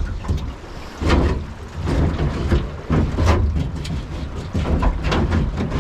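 Mini jet boat under way, its 1053cc Yamaha four-stroke engine and jet drive running with rushing water, in irregular surges.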